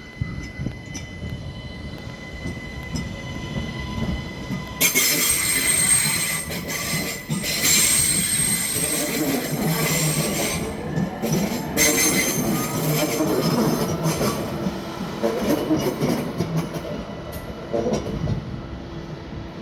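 InterRegio train's wheels squealing and its carriages rattling and banging over the station tracks. A thin steady squeal at first, then from about five seconds in much louder high-pitched squealing with rapid clattering.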